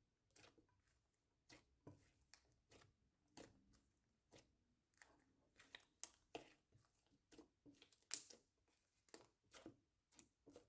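Slime being squished and worked by hand, giving faint, irregular sticky clicks and small pops.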